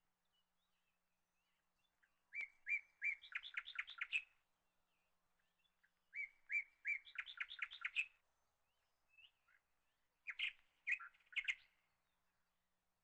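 A bird singing three short song phrases about four seconds apart, each a few separate chirps followed by a quick run of notes.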